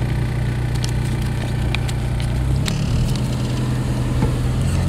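Mk1 Volkswagen Golf's PD130 diesel engine running, heard from inside the cabin; its low note changes a little over halfway through.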